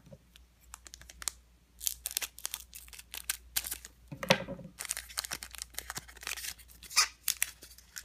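Foil wrapper of a Pokémon Ancient Origins booster pack crinkling in the hands and being torn open, an irregular run of sharp crackles that thickens over the last few seconds.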